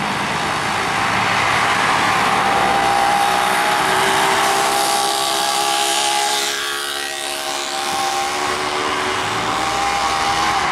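Fire engine moving off through city traffic: steady vehicle running noise with a level whine. A car passes close about seven seconds in.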